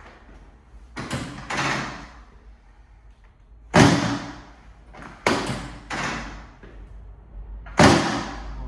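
A chiropractic treatment table thudding sharply six times as adjustment thrusts are delivered, each thud ringing out briefly.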